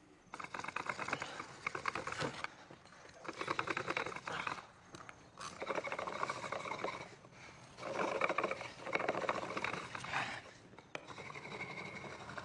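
A wolf's rough, rasping growls in about five bursts, each a couple of seconds long, with short breaks between them.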